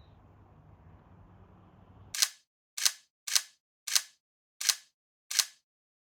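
Faint low hum for about two seconds, then over dead silence six short, sharp snapping clicks about half a second apart: edited-in outro sound effects.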